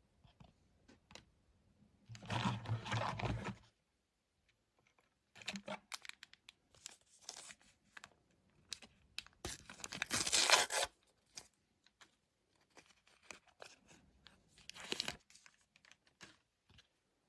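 A foil trading-card pack being torn open and its wrapper crinkled, in several short bursts with quiet gaps; the loudest tear comes about ten seconds in.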